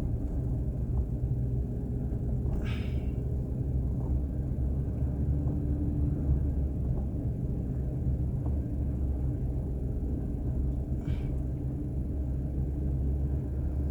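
Steady low rumble of a car driving on a snow-packed, icy road on Michelin winter tyres, heard inside the cabin as tyre and engine noise. Two brief soft hisses come about 3 seconds and 11 seconds in.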